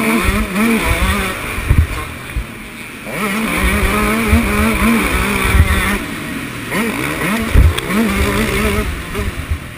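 Dirt bike engine heard from on board, its pitch swinging up and down with the throttle: on the gas, backing off for about a second and a half a little after one second in, back on hard, easing again around six seconds and pulling once more. Irregular low thumps run under the engine throughout.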